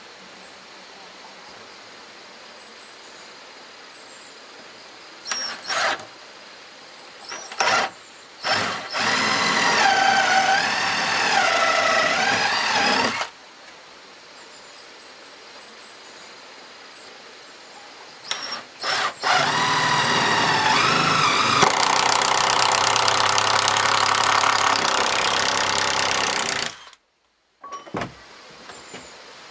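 Cordless drill boring holes into wooden planks. A few short trigger blips come first, then two long runs of motor whine whose pitch sags and rises as the bit loads up in the wood. The second run cuts off suddenly near the end.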